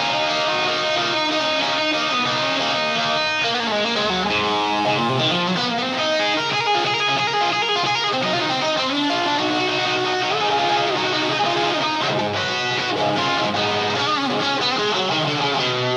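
Live electric guitar playing a busy blues-rock lead on a Stratocaster-style guitar through a Marshall amp, a steady run of changing notes.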